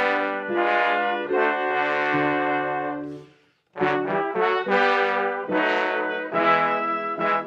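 Brass ensemble of two trumpets and two trombones with piano, playing held chords. The music breaks off a little over three seconds in and starts again after a short pause.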